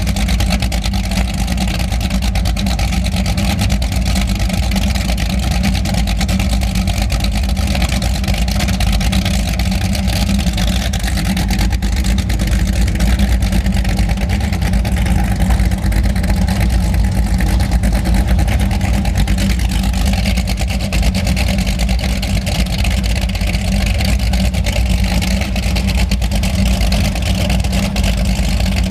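Performance powerboat engines idling at low speed, a loud, steady deep rumble.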